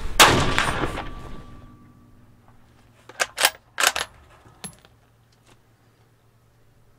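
A single loud rifle shot from a bolt-action 5.56 rifle just after the start, dying away over a second or so with a faint ringing tone lingering. Then, about three seconds in, four sharp metallic clicks spread over a second and a half, as the bolt is worked.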